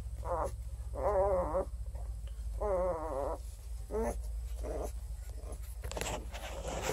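Four-day-old Redbone Coonhound puppy whining: two wavering cries, about a second and about two and a half seconds in, followed by a few short squeaks.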